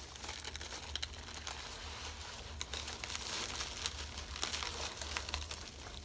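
Hands rummaging through a cardboard box full of packing peanuts: continuous rustling and crinkling with many small scattered clicks.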